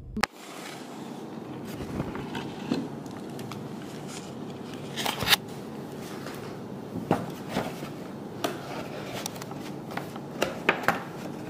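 Steady room noise with irregular clicks, knocks and light rustles, as of things being handled and moved about; one sharper knock about five seconds in.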